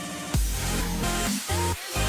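Electronic dance music in a dubstep style, with heavy bass that cuts out and comes back in a regular pattern.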